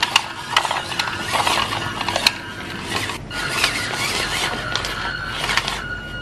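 WPL C24 RC crawler's small electric motor and gearbox whining as it crawls over smooth pebbles, with sharp clicks and knocks from the stones under the tyres. The whine holds a steady pitch through the second half.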